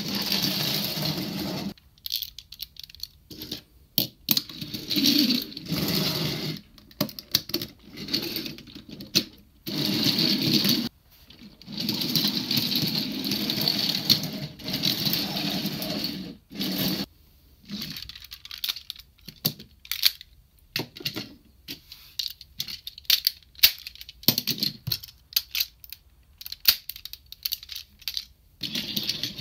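Plastic toy train cars (DX Diesel-Oh with its freight cars) rolled by hand along a wooden floor in four runs of a few seconds each. In the second half comes a string of sharp plastic clicks and clacks as the toy's parts are handled.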